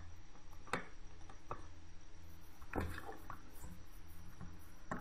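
A screwdriver turning screws out of a plastic circuit-board housing: a few scattered sharp clicks and light scrapes of metal on the screw heads.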